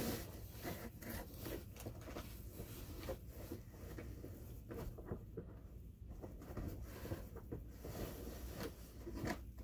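Hands rummaging in a padded camera backpack: a run of irregular rustles, rubs and scrapes of nylon fabric and gear being handled as a tele-extender is looked for.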